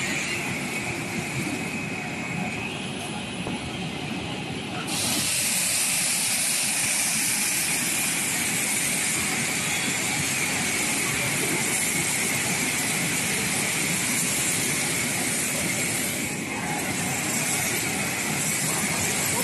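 Stainless steel fruit and vegetable bubble washing machine running: water churning and bubbling in the tank under air agitation, with spray bars showering the apples. A steady rushing hiss that gets louder about five seconds in.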